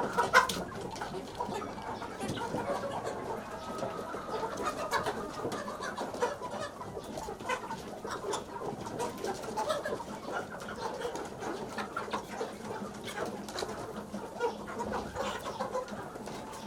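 A flock of chickens clucking and calling together, many short overlapping calls forming a steady din, with occasional sharp clicks.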